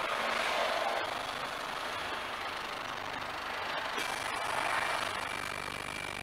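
London bus running, with its engine and road noise as a steady rushing. About four seconds in, a steady high whine sets in and holds.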